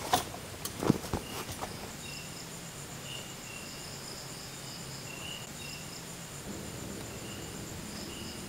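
Night insects chirping: a steady high trill, with shorter, lower chirps coming and going. A few sharp clicks and knocks sound in the first second and a half.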